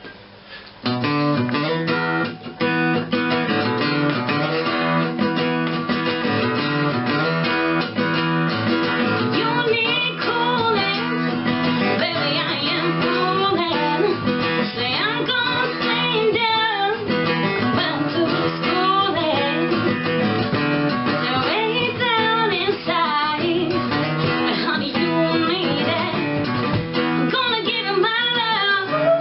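A song starts about a second in: guitar-led music with strumming, and a singing voice comes in partway through.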